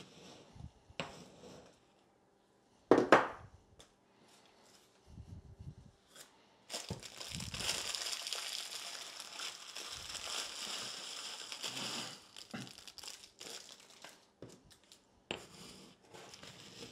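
Crackers being crushed with a pestle in a mortar: a sharp knock about three seconds in, then several seconds of steady crunching and grinding, with smaller scrapes and taps toward the end.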